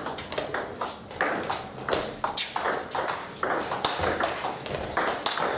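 Table tennis rally: the ball clicking sharply off the bats and the Donic table in quick alternation, about three clicks a second.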